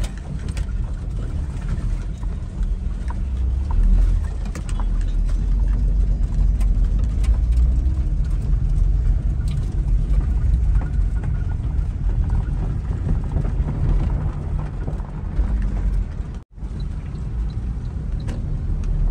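Cab interior noise of a Suzuki Carry mini truck driving over a rough, potholed dirt road: a steady low rumble of engine and tyres with scattered knocks and rattles. The sound breaks off for an instant about sixteen seconds in.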